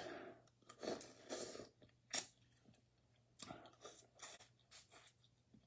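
Faint, close-up eating sounds from a person working through spicy boiled crawfish: chewing and crunching with scattered sharp clicks and short smacking bursts at irregular intervals.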